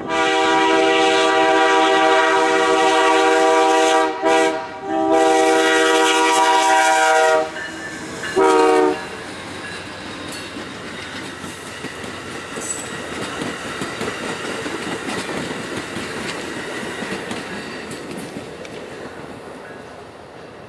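Horn of an Amtrak GE P40DC diesel locomotive sounding for a grade crossing: long blasts over the first seven seconds, then a short blast about eight and a half seconds in. After it, the passenger cars roll past with a steady clickety-clack of wheels on rail that slowly fades.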